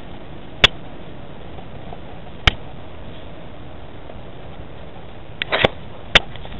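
Dog collar camera knocking and rubbing as the dog moves with its head down: a steady rubbing noise with four sharp knocks, two of them close together near the end.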